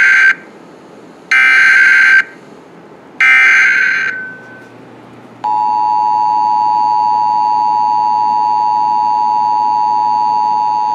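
Emergency Alert System SAME header: the end of the first of three screeching digital data bursts, then two more about a second apart, encoding the alert, here a flash flood warning. About five and a half seconds in, the steady two-tone EAS attention signal (853 and 960 Hz) starts and holds.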